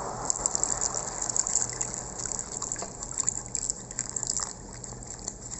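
Tapioca starch and water mixture poured into a pan of boiling mango-sugar syrup and stirred in, the syrup bubbling and crackling. The crackling dies down about four and a half seconds in.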